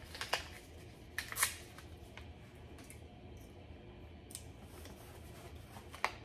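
Faint handling noise of a small parts package: a few scattered clicks and rustles as it is turned over and opened by hand, with a sharper click near the end.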